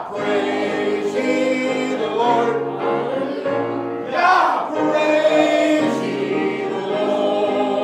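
Choir singing with musical accompaniment, held notes changing in pitch.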